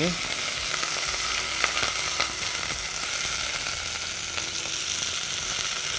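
Chicken breast pieces sizzling in hot oil in a pot as they brown, a steady frying hiss. A few light clicks of metal tongs turning the pieces.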